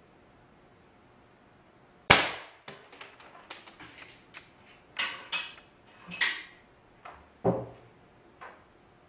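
A homemade .177 smooth-bore air gun, fired by a 24 V solenoid valve from a 150 psi chamber, fires once with a sharp crack about two seconds in, followed by a string of smaller clicks and knocks.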